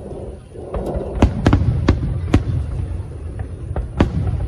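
Fireworks bursting: a string of sharp, irregularly spaced bangs starting about a second in, over a steady low rumble.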